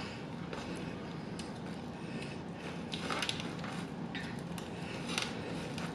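Close-miked eating sounds: chewing, with scattered soft clicks and wet mouth smacks, the clearest about three seconds in and again near the end, over a faint steady hum.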